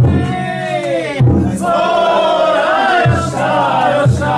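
Festival chant: a man's voice sings long, wavering held notes, and a group of men's voices joins in about a second in. Four heavy drum beats sound at uneven intervals beneath the singing.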